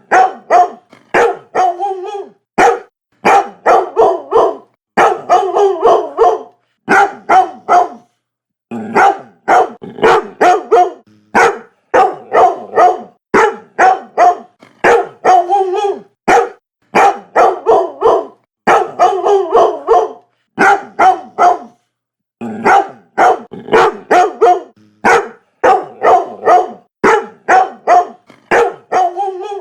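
Dog barking repeatedly in quick runs of three or four barks, with short pauses between runs.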